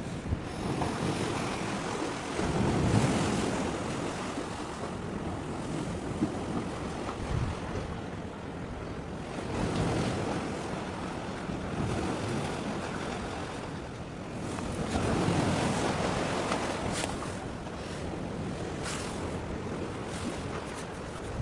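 Wind buffeting the microphone and water washing at the shoreline, a rough noise that swells and fades every several seconds.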